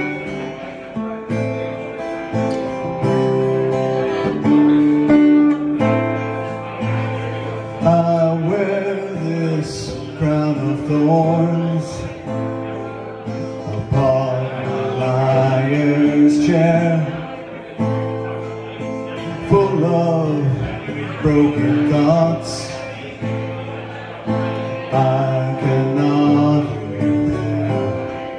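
A man singing over his own strummed acoustic guitar.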